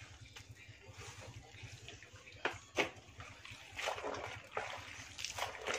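Water sloshing and trickling as a T-shirt is squeezed and rinsed by hand in a basin, with a few sharp splashes about halfway through and again near the end.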